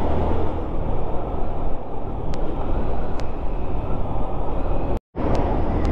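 Honda Wave 110 motorcycle being ridden at speed: steady engine, wind and road noise on the rider's microphone. The sound drops out completely for a moment about five seconds in.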